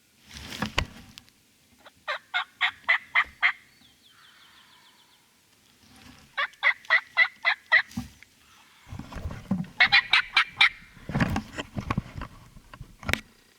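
Turkey yelping, in three runs of about seven evenly spaced notes each. Rougher bursts between the runs are gobble-like.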